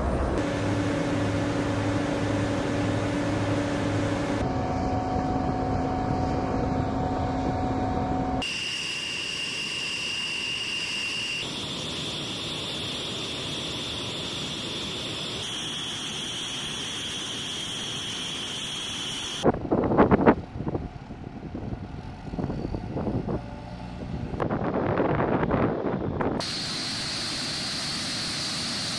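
B-1B Lancer bomber running on the flight line: a steady turbine whine whose pitch jumps several times. About twenty seconds in comes a stretch of uneven, gusting rushing noise.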